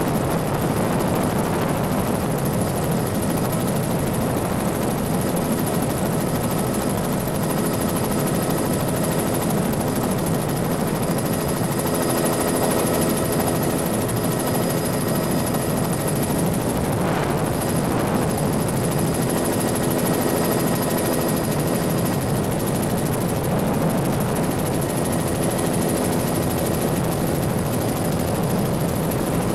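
Bell 206 JetRanger helicopter in flight, heard from the cabin with the doors off: steady rotor and turbine noise with a thin high whine over it.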